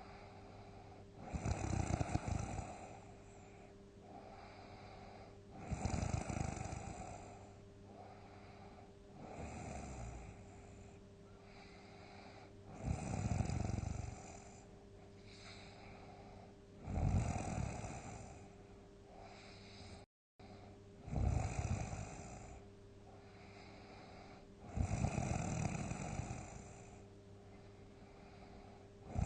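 A sleeping person snoring loudly, a big snore about every four seconds, seven in all, the third weaker than the rest, with quieter breathing between.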